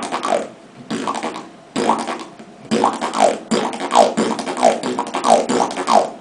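Beatboxer's lip roll: lips flapping back and forth in a rapid buzzing rattle, first in three short bursts and then in a longer run of repeated downward-sweeping rolls.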